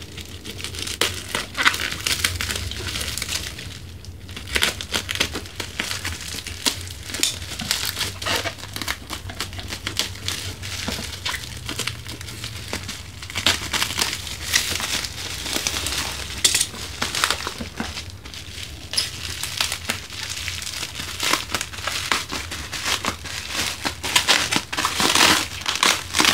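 Plastic bubble wrap crinkling and crackling as hands pull it off a small cardboard box, a dense irregular crackle with a few brief pauses.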